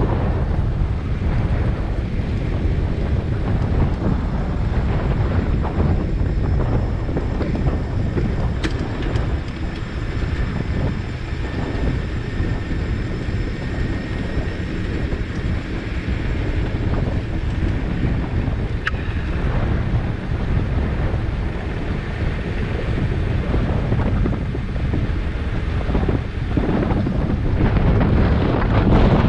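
Steady wind rush buffeting the microphone of a handlebar-mounted camera on a bicycle riding along a paved road.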